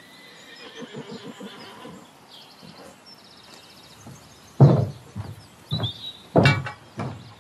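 A horse whinnies with a wavering call in the first couple of seconds, with small birds chirping high above it. Then come a few loud, short thumps in the second half.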